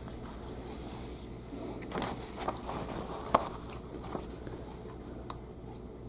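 Hands working at a sewing machine: light scraping and rustling of thread and fabric, with a few sharp small clicks, over a steady low hum.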